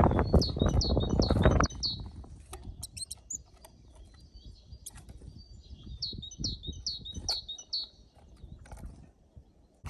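A small songbird gives a quick run of about five short, falling, high chirps, twice: at the start and again about six seconds in, with scattered sharp clicks between. A loud rushing noise covers the first second and a half.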